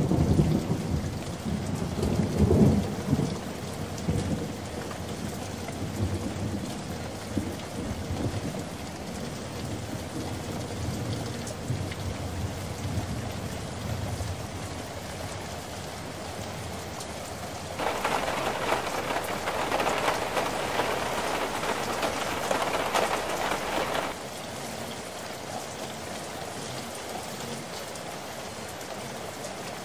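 Heavy rain in a thunderstorm, with low rumbles over the first few seconds. About two-thirds of the way through, a louder, harsher spell of downpour lasts several seconds, then cuts to softer steady rain.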